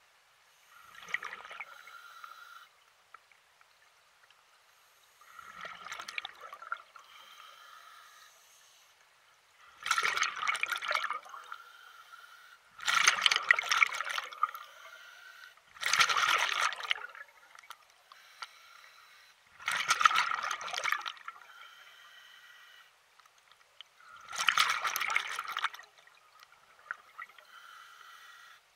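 Water sloshing and trickling in seven separate surges, each a second or two long and recurring every three to four seconds.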